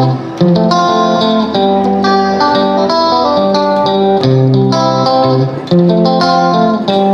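Background music: a melody of plucked, guitar-like notes, each note starting sharply and fading.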